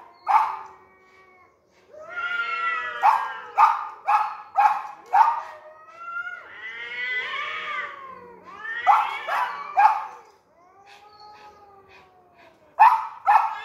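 Two cats in a standoff yowling at each other in long rising-and-falling wails, while a small dog barks sharply in runs of several barks. The barking breaks off about ten seconds in, leaving only low cat wails, and starts again near the end.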